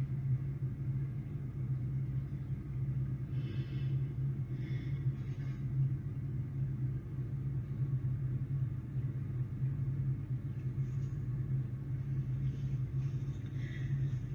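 Steady low hum of background noise, with a few faint brief sounds about three to five seconds in and again near the end.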